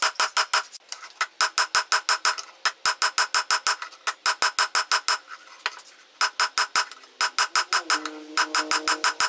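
Hand hammer striking red-hot leaf spring steel on an anvil, rapid ringing blows of about six or seven a second in runs separated by short pauses, as the bar is drawn out.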